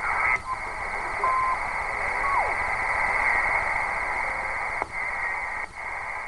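Receiver audio from a CB radio converted to the 80-meter ham band, tuned around 3.98 MHz: steady band static with a short steady whistle just over a second in and a falling whistle at about two and a half seconds. The static breaks off briefly a few times near the end as the channel knob is stepped down.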